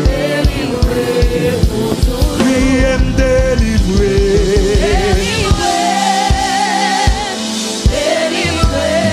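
Live gospel worship song: a group of women singing together, voices wavering with vibrato, over instrumental backing with a steady beat.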